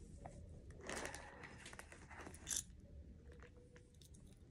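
Faint rustling and clicking of a small toy package being opened by hand and a miniature keychain gun being taken out, with a short crackle about a second in and a sharper click about two and a half seconds in.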